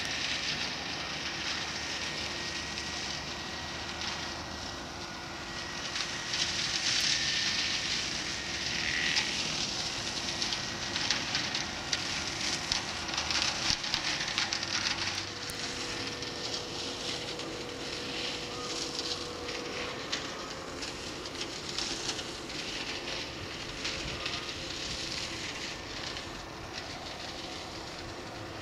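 Tractor-mounted flail hedge cutter working a hedge: a dense crackling hiss over a faint steady hum from the tractor and flail head, loudest from about six to fourteen seconds in.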